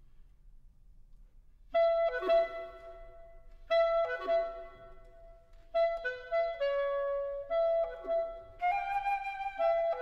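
After a short pause, a clarinet plays a birdsong-like figure four times, about two seconds apart: a quick grace-note flourish settling onto a held note. A flute joins in the later part with short high calls.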